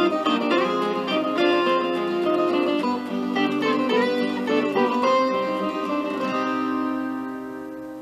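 Background music played on a plucked string instrument, ending on a held chord that fades away in the last seconds.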